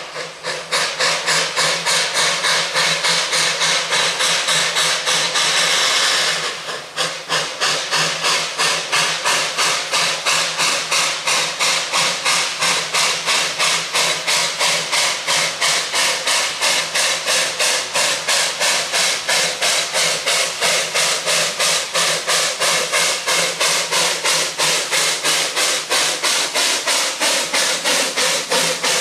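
Puffing Billy's NA class 2-6-2T narrow-gauge steam locomotive 12A working a train, its exhaust chuffing in an even beat of about three to four a second. A loud steam hiss sounds over the chuffs and stops about six and a half seconds in.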